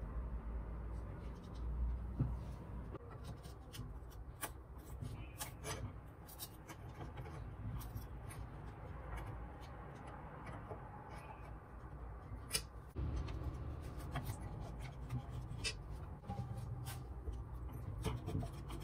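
Handling noise from taking apart an angle grinder: scattered clicks and light knocks of metal and plastic parts, with rubbing as the gear head and housing are gripped and worked apart by hand.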